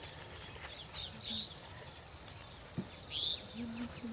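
A steady, high-pitched insect chorus of crickets or cicadas, with two short chirping bird calls, one about a second in and one near three seconds in.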